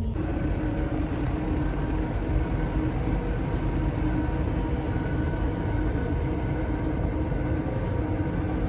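Electric motor of a business-class train seat whirring steadily as the seat reclines into a flat bed, with a constant low rumble underneath.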